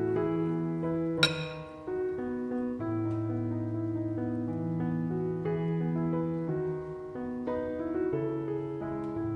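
Background piano music, slow and steady. A single sharp click stands out about a second in.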